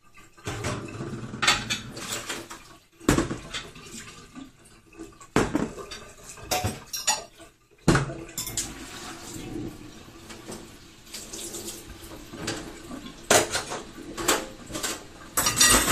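Washing up at a sink: dishes and cutlery clinking and clattering in irregular knocks, with water splashing now and then.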